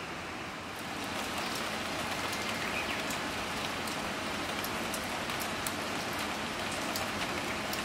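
Rain falling: an even hiss with scattered light drop ticks, coming in about a second in.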